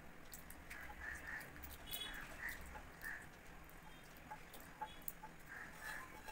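Wooden spatula scraping and tapping sticky grape chutney out of a non-stick frying pan into a bowl: faint scrapes and scattered small clicks, with a few soft, short chirping sounds among them.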